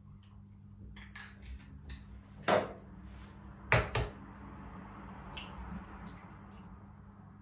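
Kitchen dishes and utensils knocking and clinking. A sharp knock comes about two and a half seconds in, then two quick knocks about a second later, with lighter clicks around them.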